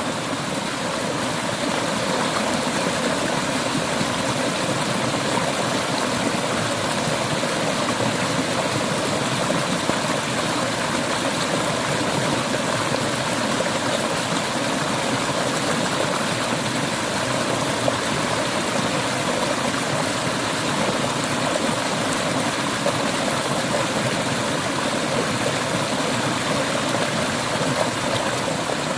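Clear mountain river water flowing steadily over rocks: a continuous, even rushing.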